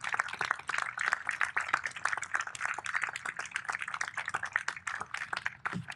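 Audience applauding: many hands clapping in a dense patter that thins out near the end.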